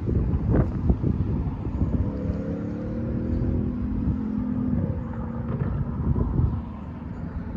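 Cars driving over a railroad crossing, with wind buffeting the microphone. For a few seconds in the middle, a passing vehicle's steady drone sinks slightly in pitch.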